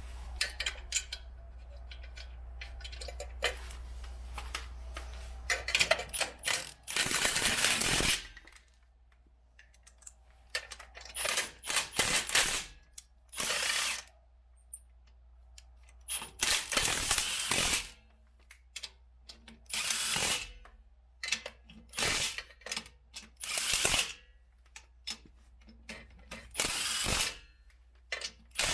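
Wheel lug nuts being run down onto the studs with a wrench, in a series of loud bursts about a second long with short pauses between them, after a few seconds of small clicks.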